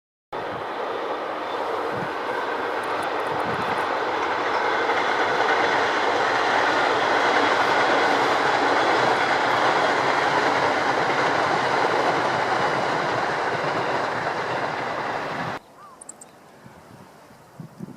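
A train running past on the line: a loud, steady rush of wheels and running noise that swells toward the middle, then cuts off suddenly about fifteen seconds in.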